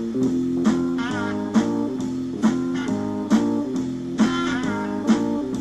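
Guitar music: plucked notes over a steady pulse with an accent about every second, and bent, wavering lead notes twice.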